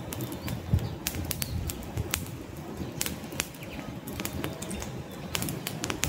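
Open wood campfire crackling, with irregular sharp pops several times a second over a low, steady noise of burning.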